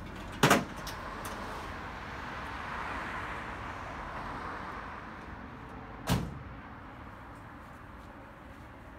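Two sharp bangs at the back of a pickup truck, about half a second in and about six seconds in, as gear is loaded into the bed and the tailgate is shut. Steady traffic noise from the street runs underneath, swelling as a car passes.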